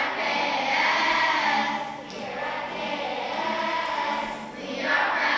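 Children's choir singing a school song in unison over an instrumental backing, in two phrases, a line and its echo.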